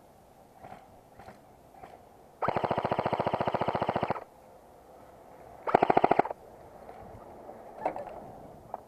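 Airsoft gun firing on full auto in two rapid bursts: a long one of nearly two seconds starting about two and a half seconds in, then a short half-second burst.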